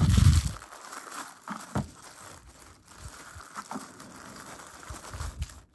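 Thin protective wrapping crinkling and rustling as it is unwrapped by hand from an Insta360 X4 silicone lens cap, with a louder handling bump right at the start and irregular small rustles and clicks after.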